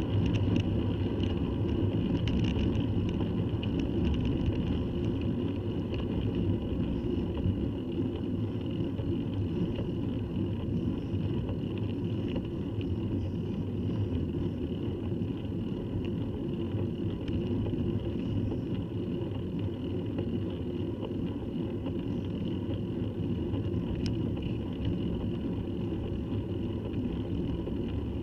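Steady rumble of a bicycle riding up a tarmac lane: tyre and road noise with wind on the microphone, a little louder in the first few seconds.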